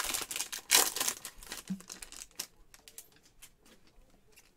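Wrapper of a 2020-21 Panini Chronicles basketball card pack crinkling and tearing as it is ripped open by hand, loudest in the first second. This is followed by softer rustles and light clicks as the cards are slid out.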